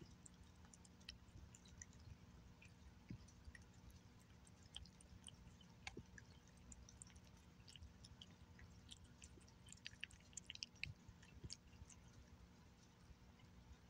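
Faint wet smacking and clicking of a cat chewing and licking wet fish cat food off a glass plate, with the clicks coming thickest and loudest a little after the middle.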